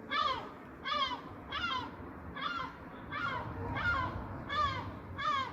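A gull giving a steady series of harsh calls, each dropping in pitch, about eight in a row, roughly three every two seconds.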